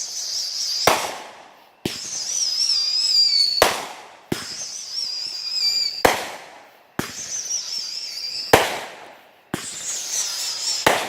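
Fireworks going off: about nine sharp bangs, roughly one a second, each rolling off in a long echo. A high wavering whistle sounds between several of the bangs.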